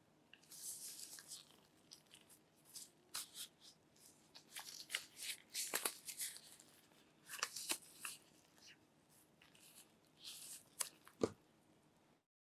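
Phone box packaging being opened by hand: several short bursts of tearing and crinkling paper and plastic, mixed with clicks and taps. A sharp knock comes near the end, the loudest thing here.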